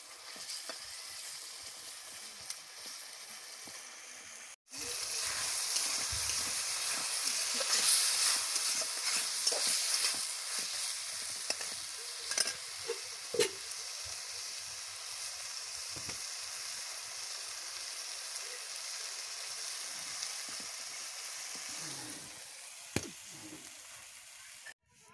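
Chicken leg pieces sizzling in hot oil in a steel kadhai while a spatula stirs them, with scattered scrapes and knocks against the pan. The sizzle cuts out briefly about four and a half seconds in and comes back louder.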